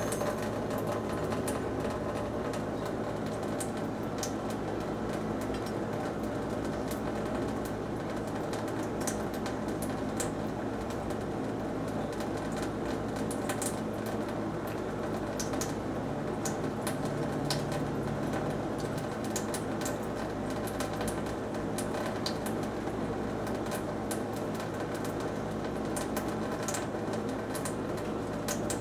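Thin stream of water from a kitchen faucet running into a stainless steel sink, a steady splashing hiss with many small ticks and drips scattered through it. A steady low hum sits underneath.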